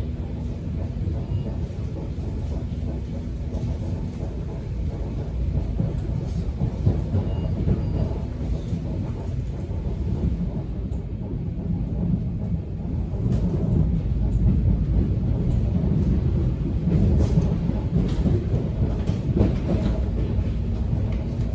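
Subway train running: a steady low rumble with scattered rattles and clicks, growing louder about halfway through.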